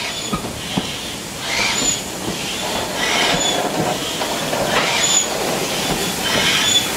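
BR Standard Class 9F 2-10-0 steam locomotive 92214 moving slowly tender-first, with a slow, regular beat of steam exhaust bursts about every second and a half, each with a brief high squeak, over a low rumble of the engine rolling on the rails.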